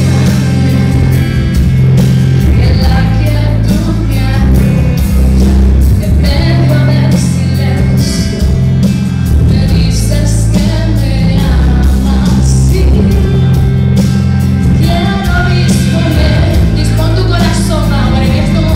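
A Spanish-language Christian worship song playing, with a full rock-style band (bass, drums) and singing that is strongest near the end.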